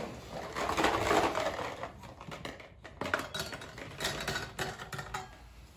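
Rustling and movement, then a run of quick irregular clicks and rattles: small draw balls tumbling against each other inside a clear draw globe as it is stirred for the draw.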